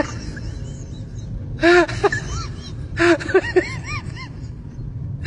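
A small puppy crying in bouts of short yelping whines, each cry rising and falling in pitch, over a steady low background rumble.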